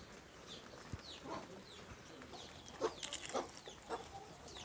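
Faint clucking of chickens, with small birds chirping in short falling notes. A brief crackling noise comes about three seconds in.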